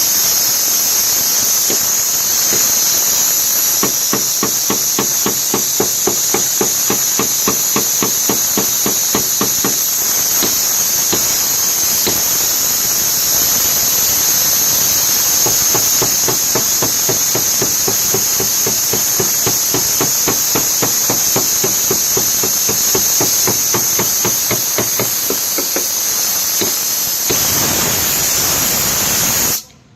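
Fast, even hammer blows on car-door sheet metal, about five a second, over a steady high hiss; the hammering stops a few seconds before the end.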